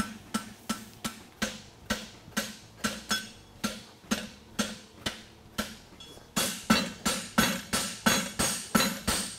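Farrier's hammer striking red-hot horseshoe steel on an anvil in a steady rhythm, about three blows a second, each with a short metallic ring. This is the forging of the shoe's branch. After a brief pause about six seconds in, the blows come louder.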